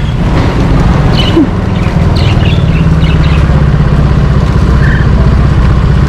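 Steady low drone of an idling motor engine, with a few short bird chirps in the first half.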